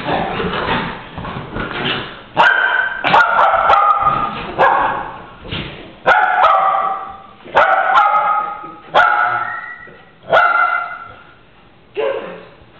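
Two small dogs play-fighting: a couple of seconds of continuous rough scuffling and growly noise, then one dog barking repeatedly, a sharp bark about every second and a half.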